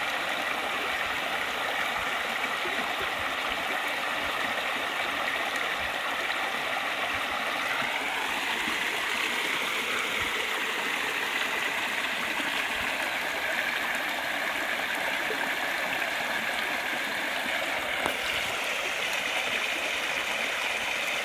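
Shallow rocky mountain stream running over stones and small cascades, a steady even rush of water.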